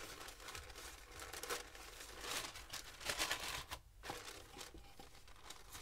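Packaging crinkling and rustling as it is handled and unwrapped, in irregular crackles that grow sparser about four seconds in.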